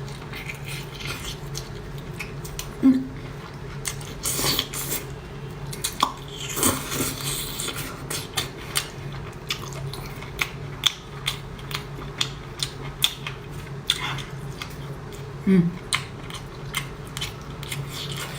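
Close-miked biting and chewing of a double-layer filled burger: wet mouth clicks and smacks, roughly two a second, over a low steady hum.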